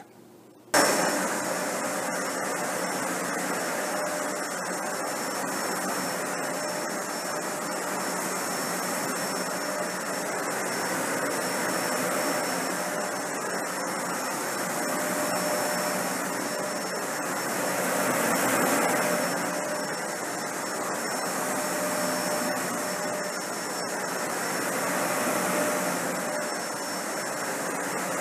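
Dyson Ball Animal 3 upright vacuum cleaner running over hair on low pile carpet: a steady rush of air with a thin steady whine. It comes on abruptly about a second in, and its level swells and eases slightly as it goes.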